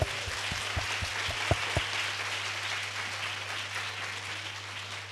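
Audience applauding: a dense patter of many hands clapping, with a few louder claps close by in the first couple of seconds, gradually dying down. A steady low hum runs underneath.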